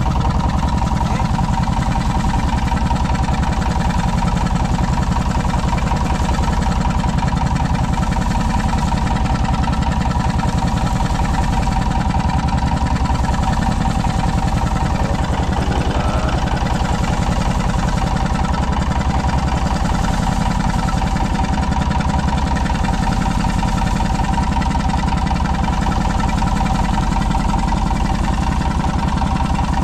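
A boat's engine running at a steady speed: a loud, unchanging drone with a fast, even thrum low down and a steady hum above it.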